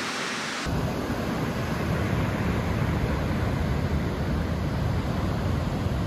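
Big typhoon-swell surf with wind on the microphone: a steady low rushing noise that switches on abruptly less than a second in, after a brief softer hiss.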